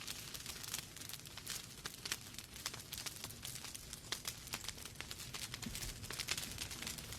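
Wood fire burning in a fireplace: logs crackling with many quick, irregular pops and snaps over a soft steady hiss.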